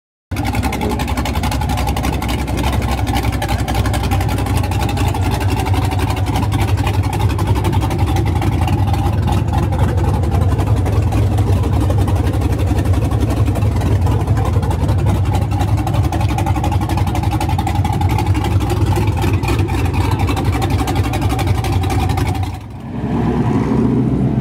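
A V8 engine running loudly and steadily in an open engine bay. About two seconds before the end the sound cuts to a different engine: a Ford F-150 Lightning pickup's V8 as the truck pulls away.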